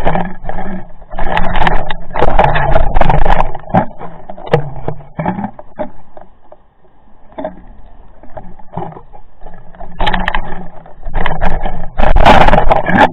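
Loud bursts of water rushing and knocking against an underwater camera housing as the camera swings and is jostled on its line, with scrapes and knocks. A faint steady hum runs underneath.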